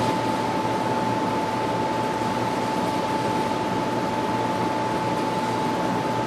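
Steady hiss with one constant mid-pitched whine running through it; no gunshots.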